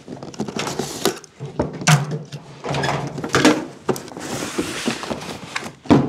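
Cardboard product box being slit open and unpacked: a string of small knocks and scrapes from the blade, tape and flaps, then a longer hissing scrape about four seconds in as the lid or inner packaging slides open.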